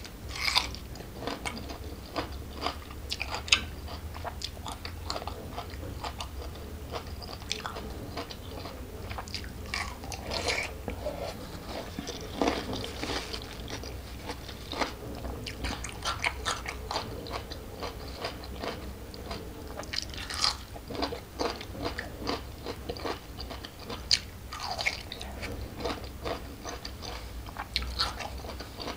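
Close-miked crunching and chewing of a raw green vegetable from a lalapan platter, dipped in sambal. Crisp bites come repeatedly and irregularly throughout, with chewing between them.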